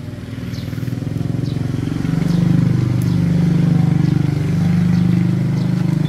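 An engine running, a low note with a fast even pulse, growing louder about two seconds in and staying loud.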